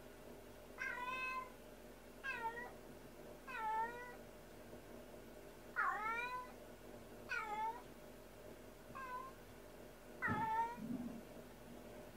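A domestic cat meowing loudly over and over, about seven long cries spaced a second or two apart. These are the anxious crying of a cat that believes it has been left alone. A soft knock comes with the last cry, near the end.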